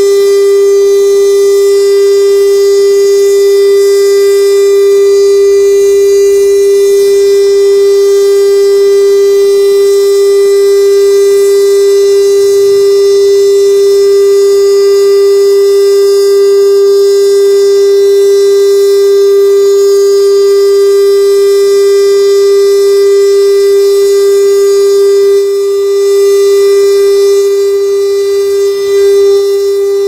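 Three-horn STL-10 tornado warning siren sounding a loud, steady tone at one constant pitch during a test, its level dipping slightly near the end.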